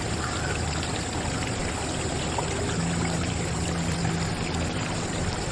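Water pouring in a steady stream from a miniature motor-driven water pump's spout, splashing into a small steel bucket.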